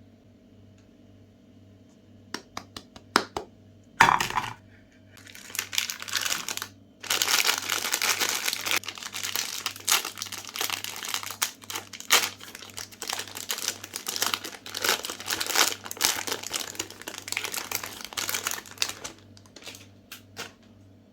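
Electric meat grinder running with a steady, evenly pulsing low hum, over which dense crinkling and crackling comes in about five seconds in and goes on until near the end, as Magnum ice cream bars are ground.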